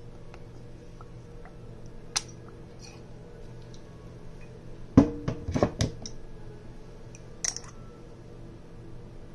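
Kitchen clatter: a few sharp knocks and clinks of items set down on a counter, loudest in a quick cluster with a brief ring about five seconds in, with single clicks near two seconds and near seven and a half seconds, over a steady low hum.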